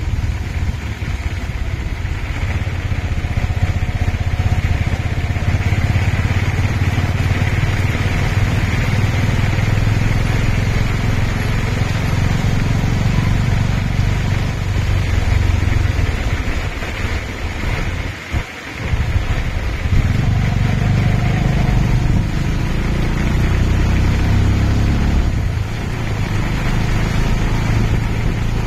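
Motorcycle engine of a Cambodian tuk tuk running steadily as it rides along a wet street, with road noise; the sound drops off briefly about 18 seconds in.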